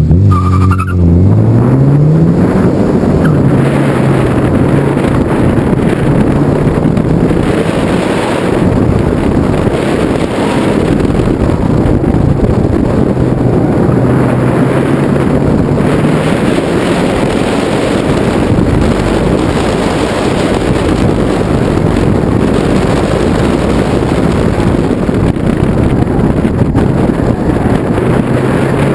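Mazda Miata's four-cylinder engine pulling hard through an autocross run, its pitch climbing steeply at the start and then rising and falling over and over as the car accelerates and brakes between cones. Heavy wind buffeting on the microphone is mixed in over the engine.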